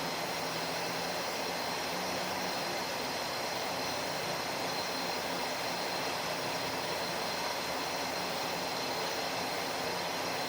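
Steady, even background noise with a faint hum, no change in level throughout.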